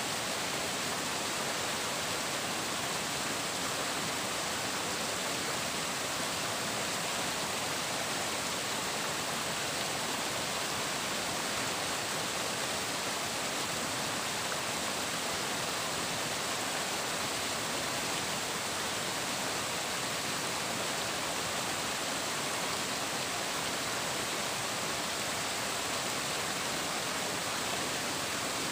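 Water flowing and splashing steadily: an even, unbroken rush with no distinct events.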